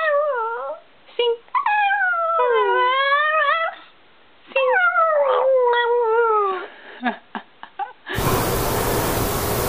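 Chihuahua howling: three long wavering howls that mostly slide down in pitch, then a few short yips. A bit after eight seconds it cuts off into a steady hiss.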